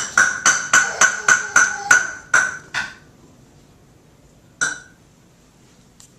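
An object struck about ten times in quick succession, about four strikes a second, each ringing briefly at the same pitch; after a pause of a second and a half comes one more strike.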